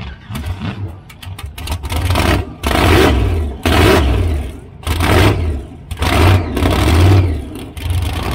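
Electric motor and gear drive of a scale RC rock crawler, heard from a camera mounted on the truck, whirring in short throttle bursts about once a second, with a few clicks before the bursts begin.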